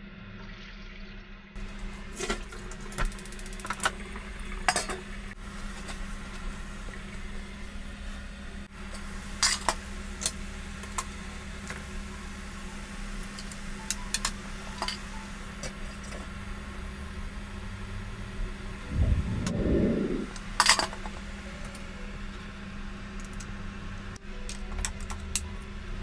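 Water boiling in a steamer pot, with sharp metal clinks and knocks from the pot, steaming rack and a wire plate lifter as a plate of steamed fish is lifted out. A steady low hum runs underneath, and a louder low burst comes about nineteen seconds in.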